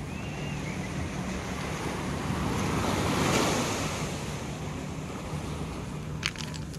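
Small sea waves washing onto a sandy, pebbly shore, one wave swelling and breaking about halfway through, with wind buffeting the microphone. A few sharp clicks near the end.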